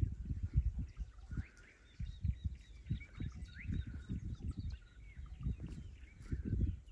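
Small birds chirping in dry bush, short calls and quick rising notes scattered through, over irregular low thumps that are louder than the birds.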